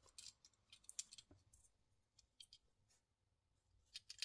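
Faint, scattered clicks and taps of two small 1:64 diecast Batmobile models being handled and turned over in the fingers, over near silence.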